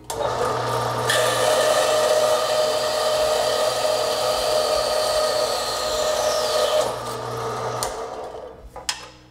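Horizontal metal-cutting bandsaw running and cutting through an 8 mm motor shaft. About a second in, a higher hiss joins the motor as the blade bites into the shaft. Around seven seconds the sound eases, and it stops about a second later.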